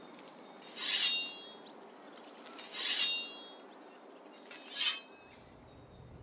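Three slow strokes of a sharpening stone drawn along a steel sword blade, about two seconds apart. Each is a rasp that swells and fades within about half a second, followed by a brief metallic ring.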